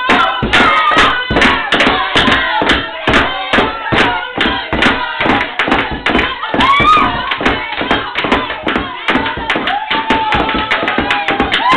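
A group of young people clapping and slapping the table in a steady fast beat while chanting and singing loudly together.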